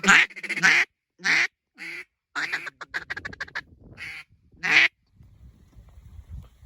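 Hand-blown mallard duck call: a series of loud, separate quacks with a quick run of short chatter notes about three seconds in, stopping about five seconds in.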